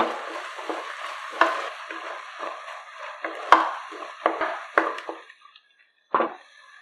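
Spatula stirring and scraping a thick green ground paste in sizzling oil in a pressure cooker pot, with a few sharp knocks of the spatula against the pan. About five seconds in the sizzle stops, and after a short pause comes one last scrape.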